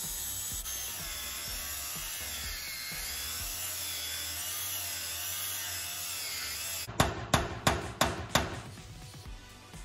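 DeWalt angle grinder cutting through the rivets of a steel running-board mount on a Model A Ford frame, its whine wavering as it bites. About seven seconds in it stops suddenly, and about five sharp hammer blows follow in quick succession, knocking at the loosened mount.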